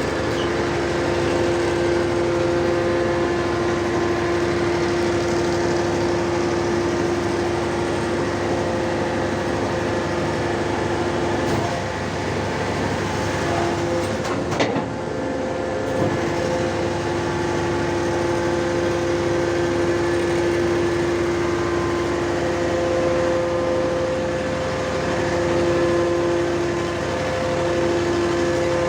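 Hydraulic static pile driver running, its engine and hydraulic pump making a steady mechanical noise with a constant whine. Two short knocks come about halfway through.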